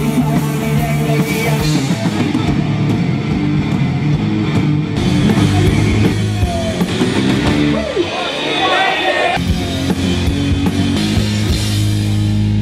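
Live rock music from a guitar-and-drums duo: electric guitar chords over a drum kit.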